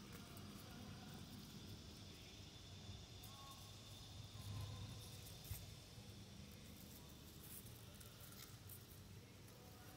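Near silence: faint outdoor ambience with a steady low rumble and a few soft ticks around the middle.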